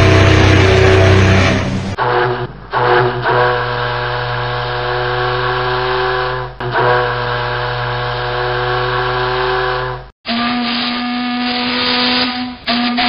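Ocean liner whistles one after another, as recreated sounds: the SS United States's deep horn ends about two seconds in, then RMS Carpathia's steam whistle sounds for about eight seconds with a few short breaks, then SS Arabic's whistle starts about ten seconds in.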